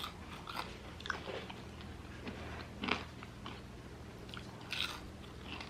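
A person chewing food, close to the microphone, with soft wet mouth clicks and a couple of sharper crunchy bites about 3 seconds in and just before 5 seconds.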